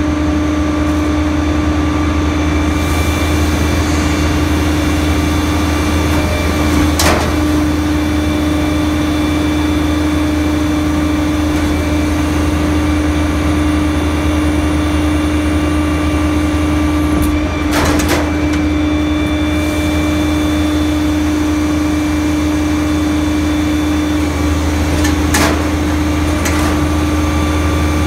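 Rear-loading garbage truck running steadily, a low engine hum under a constant whine, while a dumpster is tipped into its hopper. Three sharp clanks are spread through, as the trash and the container knock against the hopper.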